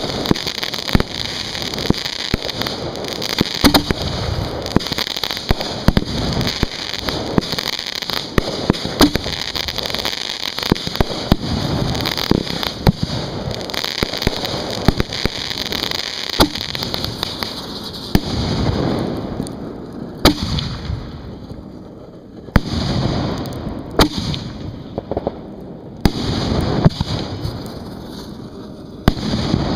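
Aerial firework shells launching from mortar racks at close range and bursting overhead: a dense run of bangs and crackle. About two-thirds of the way through it thins to single loud bangs a couple of seconds apart.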